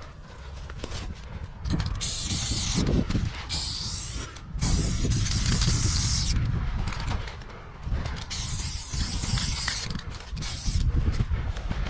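Aerosol spray paint can hissing in about four bursts of one to two seconds each as black paint is sprayed onto a concrete wall, over a low rumble.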